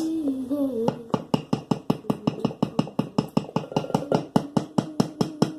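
Rapid, even knocking, about six knocks a second, starting about a second in, with a voice humming a held note over the first second.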